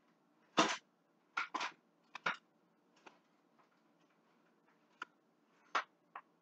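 Kitchen utensil and pan being handled at the stove: a string of short scrapes and clicks at irregular intervals, the loudest and longest about half a second in.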